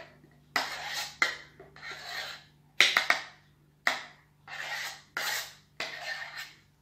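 Metal spoon scraping the inside of a small stainless steel saucepan to get the last thick lemon cream out: about eight rasping strokes, each with a sharp start, and a few sharp metal clinks about three seconds in.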